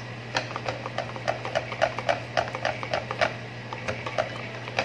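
Wire whisk beating cake batter in a stainless steel bowl, the wires clicking against the bowl's side about four times a second and slowing near the end. A steady low hum runs underneath.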